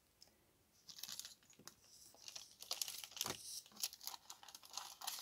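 Paper rustling and crinkling as paper pieces are handled, a run of crisp rustles and small clicks starting about a second in.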